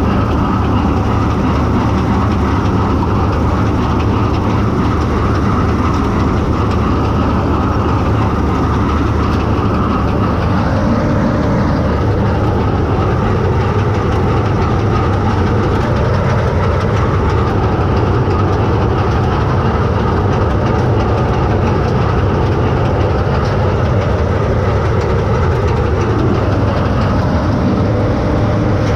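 Bizon Z056 combine harvester running steadily while harvesting triticale: the engine and threshing machinery together make a loud, constant mechanical noise with a deep engine hum underneath.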